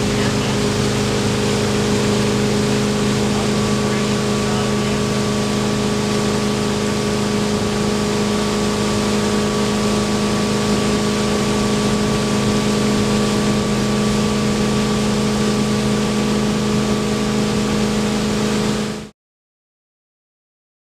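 Inboard motorboat engine running at a steady speed over the rush of water, cutting off abruptly about two seconds before the end.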